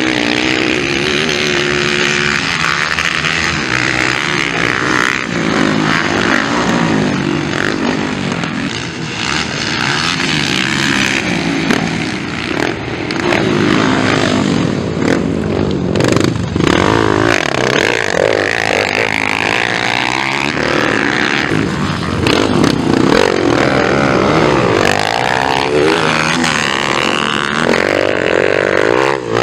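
Motocross dirt bikes racing on a dirt track, their engines revving up and dropping back again and again as the riders accelerate and shift. At times several engines overlap.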